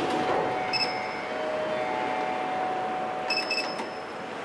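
KONE elevator car button panel beeping: quick high beeps about a second in, as the floor button is pressed, and another short run of beeps about three and a half seconds in, over a faint steady hum.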